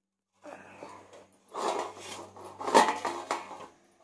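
Bottle gourd grated on a metal grater over a steel plate: three scraping strokes.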